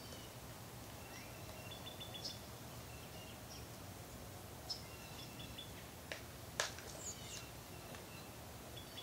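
Faint songbird chirps and short quick trills over a steady low outdoor hum, with a few sharp clicks, the loudest about six and a half seconds in.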